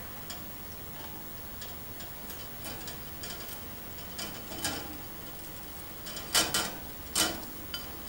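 Budgerigar eating cucumber slices off a plate: irregular small clicks and taps of its beak, with a few louder knocks in the second half.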